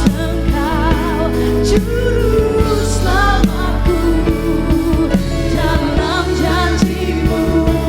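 Live worship band music: a voice sings a wavering melody over a full band with drums and bass.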